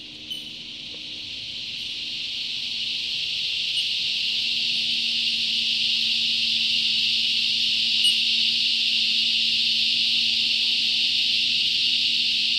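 Cicada chorus in the treetops: a high-pitched buzz that swells over the first few seconds and then holds steady and loud. A few brief bird notes come through near the start and twice later.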